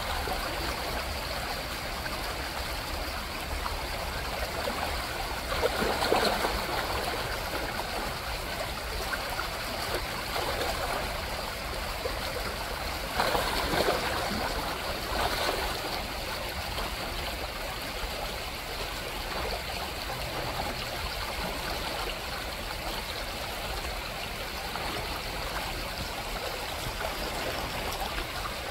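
Shallow gravel creek running steadily, broken by chum salmon splashing as they thrash at the surface, about six seconds in and twice more near the middle.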